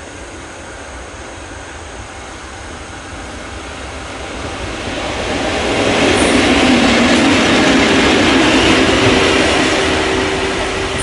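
JR EF81 electric locomotive running light past at speed, its run along the rails growing louder as it comes near and passes about six seconds in, then easing off. A steady whine sets in about five seconds in and holds as it goes by.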